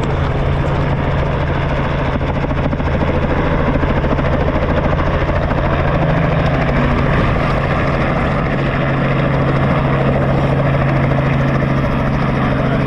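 Tour helicopter running on the landing pad, its engine and rotor making a steady, loud drone.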